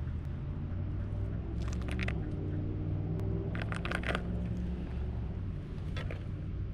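A landing net's mesh rustling and crackling in short clusters, about two seconds in, around four seconds and again near the end, as hands work a hook free from a carp's mouth. Under it runs a steady low engine-like rumble.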